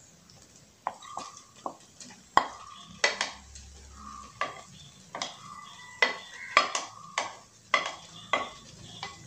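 A kitchen utensil scraping and knocking against a ceramic plate and the pan as chopped cooked pineapple is pushed off into the kadai: irregular sharp clinks, about two a second, some ringing briefly.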